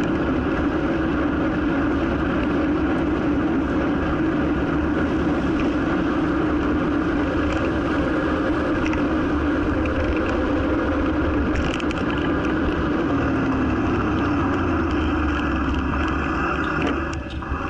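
Steady rush of wind on the microphone and rumble of tyres on the road from a bicycle riding at speed, with light traffic passing. It stops abruptly at the very end.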